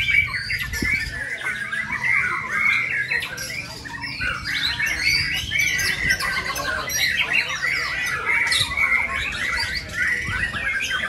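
Caged white-rumped shamas (murai batu) singing over one another in a dense, unbroken chorus of quick whistles, trills and chattering phrases.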